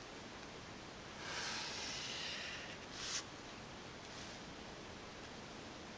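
Felt-tip marker drawn across paper along the edge of a plastic drafting triangle: a faint hissing stroke of about a second and a half starting about a second in, then a short stroke around three seconds in.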